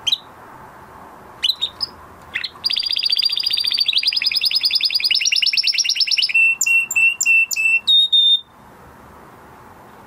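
Male canary singing, coming back into song after his moult. A few short chirps open the phrase, followed by a fast trill of rapidly repeated notes for about three and a half seconds, then several separate falling notes and a held whistle, ending abruptly about eight and a half seconds in.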